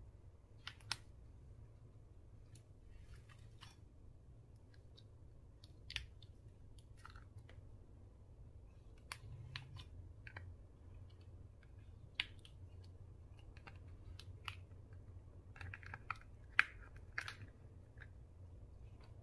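Slime being mixed and pressed by hand, giving scattered, irregular sticky clicks and pops, with a few louder snaps, over a faint low hum.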